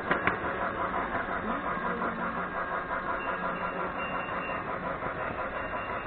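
Electric toy train running on its track, its motor and wheels heard close up from a camera riding on the train: a steady running noise with two sharp clicks right at the start.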